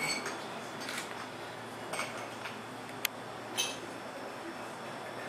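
Scattered clinks of dishes, glassware and cutlery, five or so short sharp ones a second or so apart, over faint room murmur.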